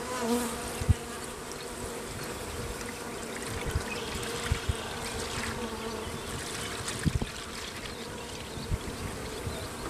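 Honeybees buzzing steadily around an open hive, with sugar syrup trickling from a plastic jug into a hive-top feeder. A few light knocks sound through it.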